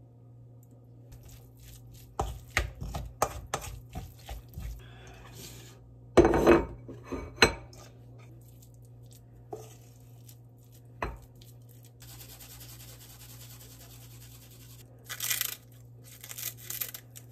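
Kitchen work sounds: a series of clicks and knocks from dishes and utensils being handled, with the loudest clatter about six seconds in. A steady hiss follows for about three seconds, then more clicks near the end, all over a steady low hum.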